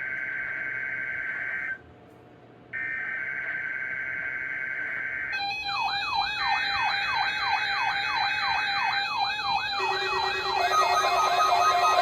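NOAA Weather Radio SAME data header: a buzzy two-tone data signal sent in two long bursts with a one-second pause between them. About five seconds in, weather radio receivers start sounding their alert alarms, a warbling siren sweep repeating about three times a second over steady beeping tones, and more alarm tones join near the end.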